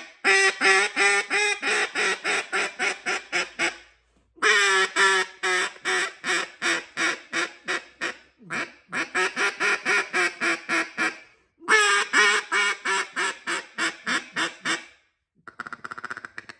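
Handmade bocote-wood duck call blown in four long runs of rapid quacks, each run starting loud and trailing off, then a quieter, faster run near the end. The tone is a little raspy as the reed is being tuned.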